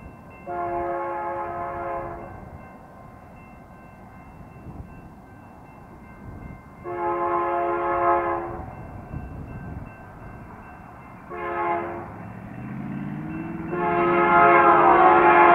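Air horn of a BNSF freight locomotive sounding long, long, short, long: the standard grade-crossing signal. The last blast is the loudest and is still sounding at the end. Underneath it, the diesel engines of the approaching lead locomotives grow louder and rise in pitch.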